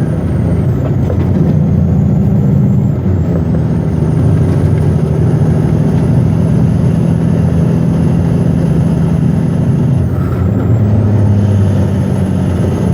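Western Star logging truck's diesel engine pulling hard under load on a climb, with a high whine above it. The engine note and the whine dip briefly about a second in, again about three seconds in, and once more near ten seconds in, then pick back up.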